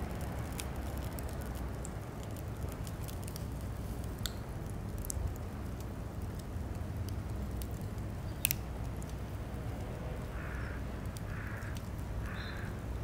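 Outdoor background with a steady low rumble and scattered sharp clicks, then three short animal calls about a second apart near the end.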